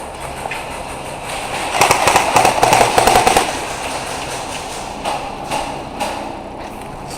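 Airsoft guns firing: a rapid burst of sharp shots about two seconds in, lasting a second and a half, then a few single pops.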